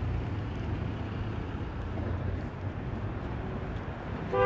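Steady low rumble of city street noise, traffic-like, with a voice beginning right at the end.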